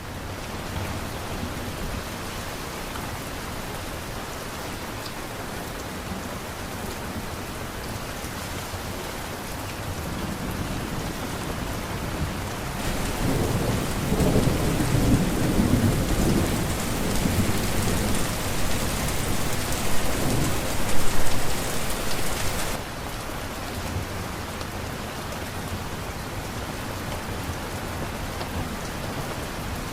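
Steady heavy rain falling. A low rumble of thunder builds about ten seconds in, is loudest a few seconds before it cuts off abruptly about two-thirds of the way through, and then only the rain goes on.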